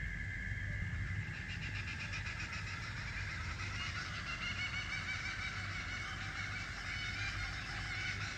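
Steady chorus of night-calling creatures: a shrill, rapidly pulsing layer comes in about a second in and carries on over a high steady drone and a low rumble.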